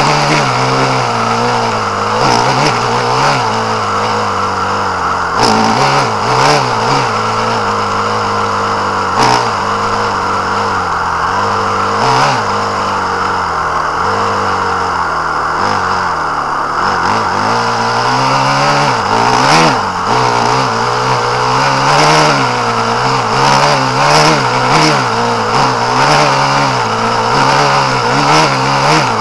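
Small petrol engine of an off-road vehicle running under changing throttle as it drives over rough ground, its pitch rising and falling, with occasional sharp knocks.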